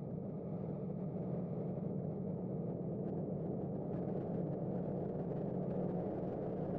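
Hurricane wind blowing over the camera microphone in heavy rain: a steady low rush with no let-up, with faint ticks from about three seconds in.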